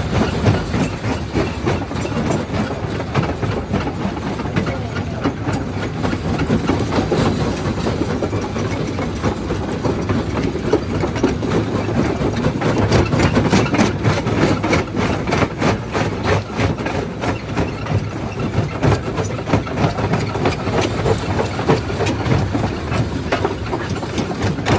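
Primary jaw crusher running and crushing rock: a loud, steady mechanical rumble packed with constant knocking and cracking of stone.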